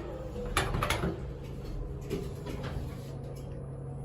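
Otis elevator doors closing, with a few sharp clunks and clicks in the first second, over a steady low hum from the elevator.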